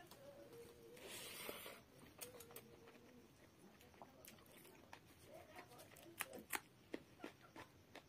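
Faint eating sounds of rice and fish curry eaten by hand: fingers working the rice on the plate, chewing and small wet mouth clicks. A short hiss comes about a second in, and a run of sharper clicks comes six to seven seconds in.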